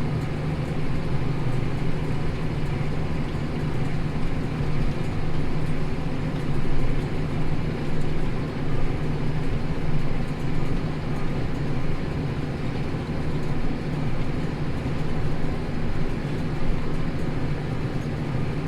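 Tractor engine running steadily under load while pulling a plough through hard wheat stubble, a constant low drone with no change in pace.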